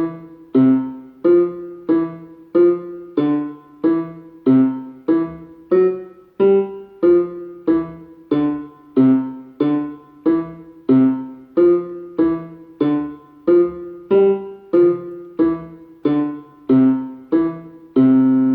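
Electronic keyboard with a piano sound playing a low bass part in short staccato notes, C and G alternating, in a steady beat of about one and a half notes a second, with a longer held note near the end.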